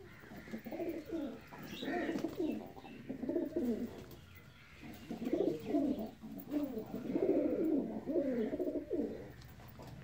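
Domestic fancy pigeons, fantails among them, cooing in repeated low phrases, several overlapping, with a short lull about four seconds in.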